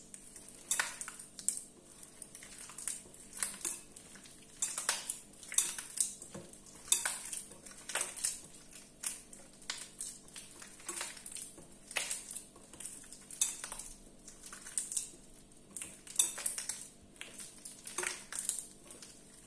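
Hand squeezing and mixing soft butter and cheese in a glass bowl, with irregular short clicks and taps against the glass, roughly one or two a second.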